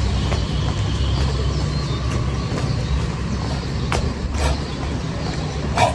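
A steady low rumble, with a few sharp knocks in the last two seconds.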